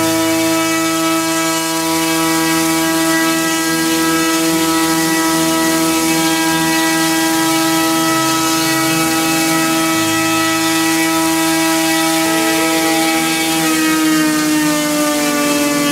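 Turnigy G-46 brushless motor spinning a propeller on a thrust test stand: a loud, steady whine held at one pitch. A few seconds before the end it drops in pitch as the motor slows.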